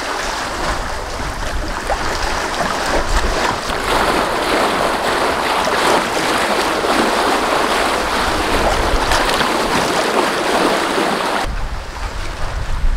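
Sea water rushing and splashing along the float hull of a trimaran sailing at speed, with its wake hissing past. About eleven seconds in it gives way to a low rumble of wind on the microphone.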